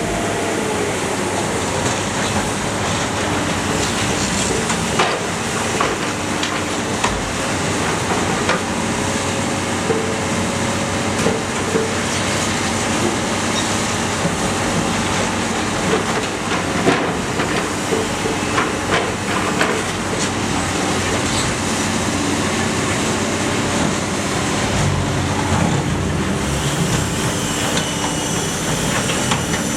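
Iron Pack car baler running: a steady machinery drone with scattered sharp metal clanks and knocks.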